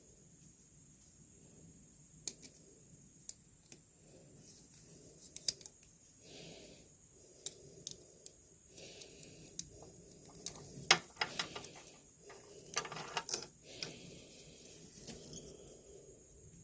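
Irregular small clicks, ticks and scrapes of a depinning tool and wire terminal being worked in a plastic wiring-harness connector, with a few sharper clicks about two seconds in, midway and near eleven and thirteen seconds.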